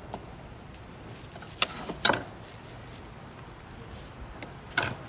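A few sharp knocks and clatters of hard objects over steady background noise: one about one and a half seconds in, a louder double knock just after two seconds that rings briefly, and another near the end.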